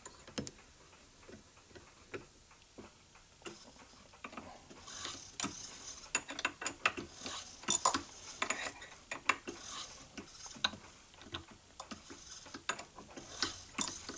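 Irregular metal clicks, scrapes and rattles of hand work at a Taig micro lathe's chuck and tailstock die, with no motor running. They are sparse at first and come thick and fast from about five seconds in.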